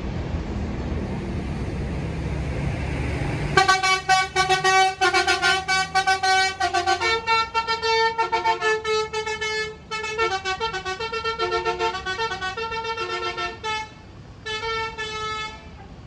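Basuri (telolet) musical air horn playing a quick tune: several horn notes sound together and change pitch every fraction of a second. It starts about three and a half seconds in, after a low engine rumble, and has two short breaks near the end.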